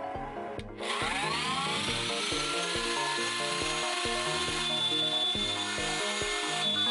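Wood router switched on about a second in, spinning up with a rising whine and then running steadily as a pointed 45-degree bit cuts into black walnut. Background music plays underneath.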